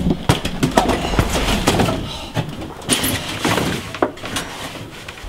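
A run of knocks, thuds and clatter, like hard objects bumping and banging on wood, with a louder knock about three seconds in, thinning out towards the end.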